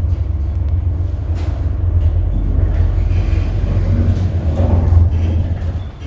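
Loud, steady low rumble and hum of a 1989 Schmitt + Sohn elevator car travelling up a floor, fading near the end as the car slows to a stop.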